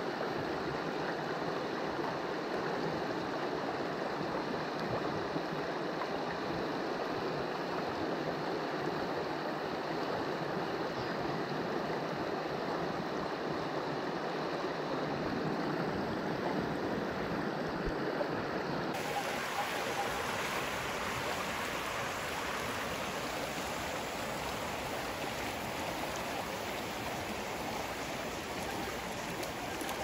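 Shallow mountain creek rushing over a rocky riffle: a steady, even water noise. About two-thirds of the way through it turns brighter and hissier.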